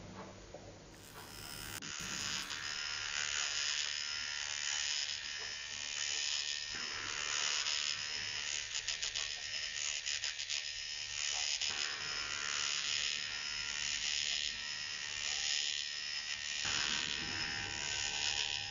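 Dr.Pen Ultima A8S electric microneedling pen running with a steady high buzz as its needle cartridge is worked over facial skin, starting about two seconds in.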